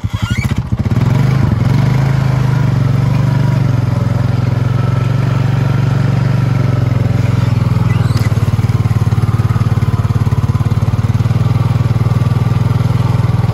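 ATV engine running steadily in first gear while the quad pushes through deep floodwater, with the water churning around the front fender. The engine note picks up about a second in and then holds.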